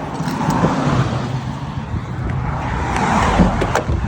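Road traffic noise with a vehicle passing by, swelling about three seconds in, and a few short knocks.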